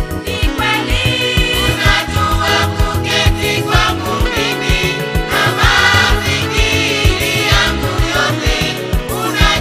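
Choir singing a gospel song over instrumental backing with a steady beat.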